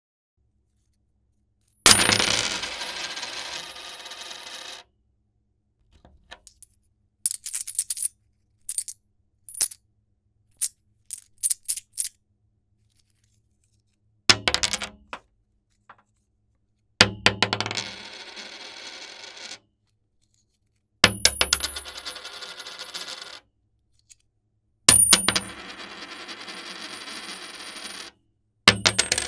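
Coins scattering and clinking: a handful pours out and jingles for a few seconds, then a string of single coins clicking down one at a time, followed by several more pours of coins separated by short silences.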